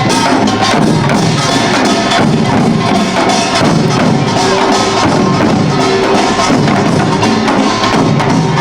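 Korean pungmul percussion ensemble playing Imsil Pilbong nongak: kkwaenggwari small gongs, janggu and buk drums striking in a loud, dense, unbroken rhythm.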